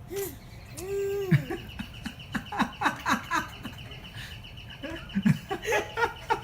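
A novelty hotel doorbell playing its comic sound effect: two arched, pitched calls, then a quick run of short animal-like calls over a steady high tone.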